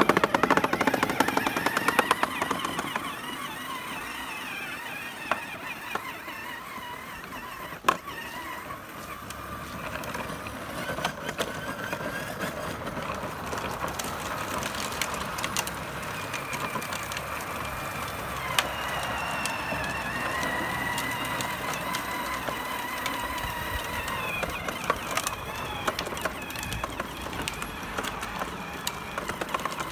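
Battery-powered kids' ride-on toy ATV driving: its electric drive motor and gearbox give a steady whine that wavers in pitch, with crackling from the hard plastic wheels rolling over asphalt. The sound is louder in the first couple of seconds.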